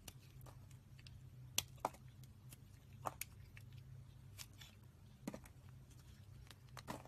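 A small blade shaving thin slices off a bar of soap. It gives a series of sharp, crisp clicks and crackles at irregular intervals, the loudest about one and a half seconds in, over a faint low hum.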